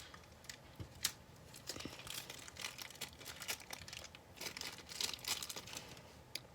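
Plastic packaging crinkling and crackling in irregular bursts as a small toy's wrapper is worked open by hand.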